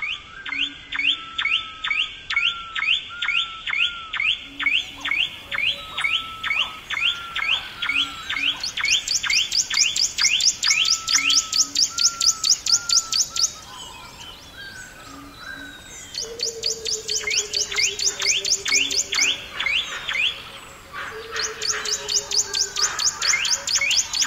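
Forest ambience of layered animal calls: a steady train of short, evenly repeated chirps, about three a second, at times joined by a higher, faster chirp train and short whistled notes. In the second half a lower, drawn-out falling whistle sounds twice.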